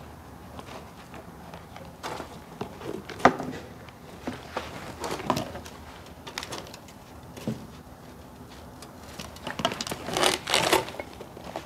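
Hand tools working a steel brake line: scattered clicks and metal knocks, with a busier stretch of scraping about ten seconds in as the line is cut with a tubing cutter.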